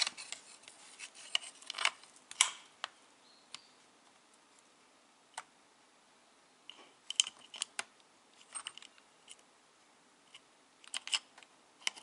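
Scattered light clicks and metallic clinks of a small OS Max .21 model engine being handled and set against its metal mount on an RC buggy chassis. The clicks come in small clusters, about seven seconds in and again near the end.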